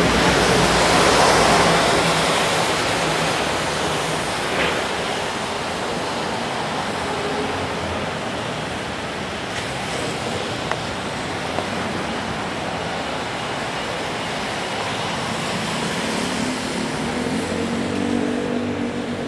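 Wet city street: steady hiss of traffic on rain-soaked pavement, loudest in the first two seconds as a vehicle goes by, with an engine's low hum coming in near the end.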